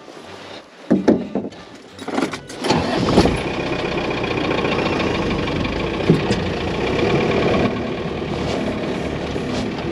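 A couple of knocks, then a vehicle engine starts a little under three seconds in and runs steadily.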